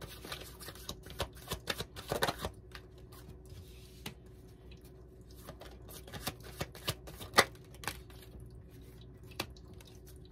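A tarot deck being shuffled by hand: irregular soft slaps and clicks of cards, busy for the first two or three seconds, then sparser, with a sharper card tap about seven seconds in.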